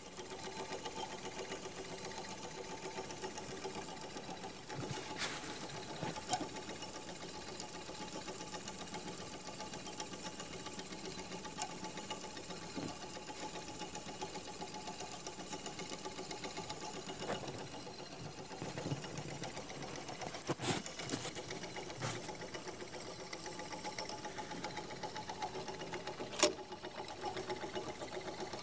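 Antique spring-driven clockwork roasting spit running: its gear train turns with a fast, steady mechanical whirr and clatter. A few sharper clicks stand out over it.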